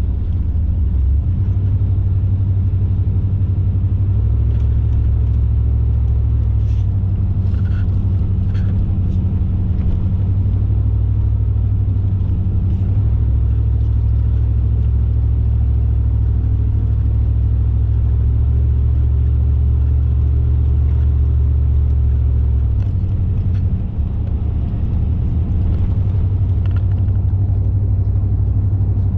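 Car driving along a road: a steady, loud low rumble of engine and tyres, its pitch shifting a few times with speed or gear, with a few faint ticks.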